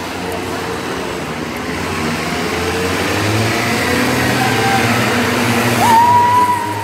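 Road traffic with motor vehicle engines running, growing louder as a vehicle comes closer. About six seconds in, a high steady tone starts with a quick upward slide.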